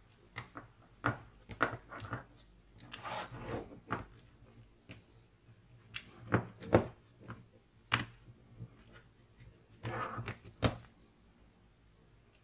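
Parts of a disassembled Bosch GSB 18V-EC cordless drill being handled: irregular clicks and knocks of the plastic housing, switch, battery terminal block and motor-gearbox assembly, with a short rustling scrape twice along the way.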